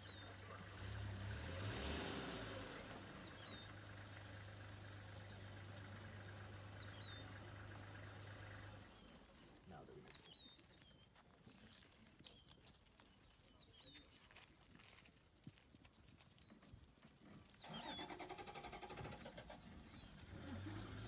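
Safari vehicle engine idling as a low steady hum that stops about nine seconds in. Short high chirping calls repeat every two to three seconds throughout.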